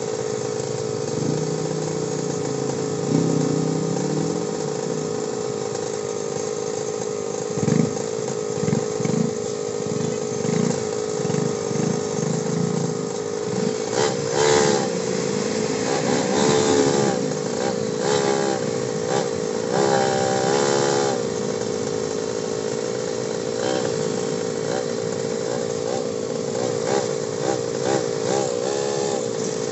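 Motorcycle and tricycle engines running in slow, stop-and-go street traffic, under a steady high whine that wavers up and down in pitch for several seconds about halfway through.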